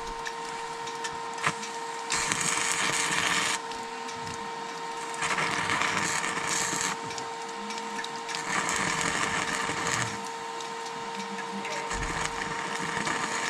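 Stick (arc) welding: the arc crackles and sizzles in four or five short runs of a second or two each, with brief gaps between, over a steady hum from the welding machine. The welder says the electrodes have got damp.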